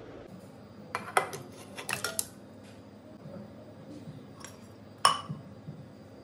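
A spoon knocking against the rim of a metal pressure cooker as spice powder is tipped onto raw beef: a cluster of sharp clinks about one to two seconds in, then one more clink about five seconds in.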